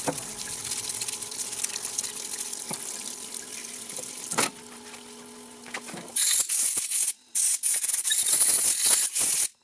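Diesel injector parts being cleaned over a parts-washer grate: wet scrubbing and rubbing of the parts, then, about six seconds in, loud hissing blasts from a hose nozzle, turned on and off several times.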